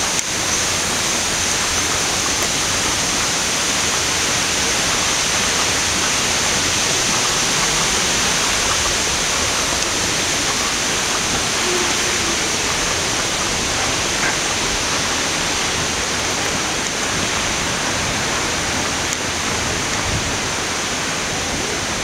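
Rushing water of a waterfall and its stream: a steady, even noise.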